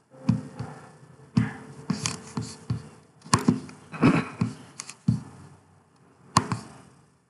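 About a dozen irregular clicks and knocks from a computer mouse and keyboard being worked at a desk, some sharp and some with a dull thud underneath.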